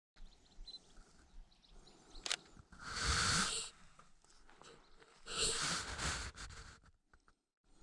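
A person breathing heavily near the microphone: two loud breaths about two seconds apart, with a sharp click just before the first.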